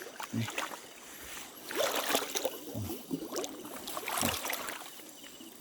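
Water sloshing and splashing as a person wades through deep, muddy river water, in irregular surges with a few dull thuds underneath.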